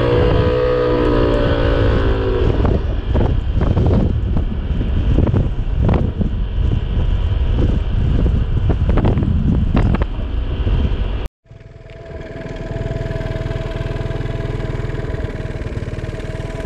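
Motorbike engine running under way, with heavy wind buffeting on the microphone; the engine note eases down over the first couple of seconds. About eleven seconds in the sound cuts off sharply, and a steadier engine hum with less wind follows.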